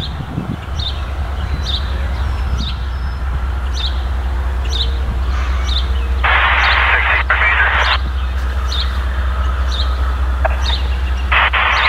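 Low, steady rumble of an approaching Union Pacific diesel locomotive, growing slowly louder, with a bird chirping about every half second. Around the middle a burst of scanner-radio static lasts about a second and a half, and another starts near the end.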